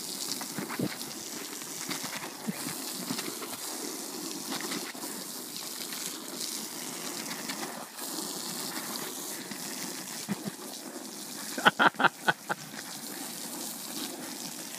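Garden hose spraying water steadily onto a rug and grass, a constant hiss and splatter. Near the end comes a quick run of short, loud sharp sounds.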